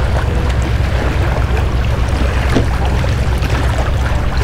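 Steady wind noise on the microphone, with water washing against the rocks at the shoreline.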